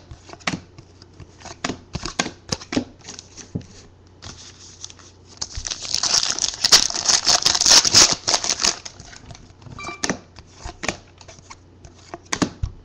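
Trading cards being handled: a string of small taps and clicks as cards are flicked through and set down. From about five and a half to nine seconds in there is a louder stretch of dense rustling and crinkling.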